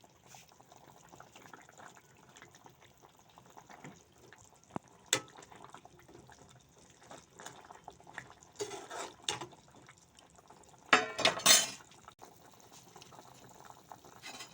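Chicken soup boiling in an open pot, a low steady bubbling. A few clicks and knocks of a utensil against the pot are scattered through it, with the loudest clatter about eleven seconds in.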